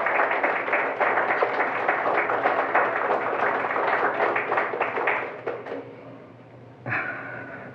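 Audience applauding, many hands clapping together, fading out about five seconds in.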